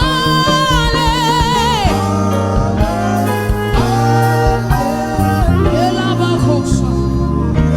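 Gospel worship music: a live band plays under a singer, who holds a note with strong vibrato for about two seconds at the start.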